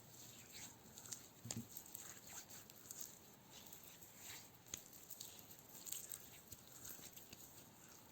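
Soft, close-miked hand sounds: fingertips making faint irregular taps, scratches and crackles, with a few slightly louder taps.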